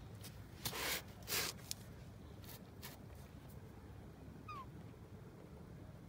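Young green parakeet giving two short raspy squawks about a second in, then a faint short chirp that falls in pitch later on, with a few light ticks.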